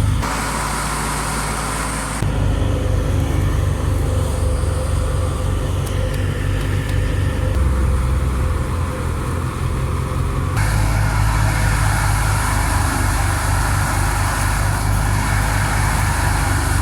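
Tractor diesel engine running steadily with a low, even pulse. The sound changes abruptly about two seconds in and again about ten seconds in.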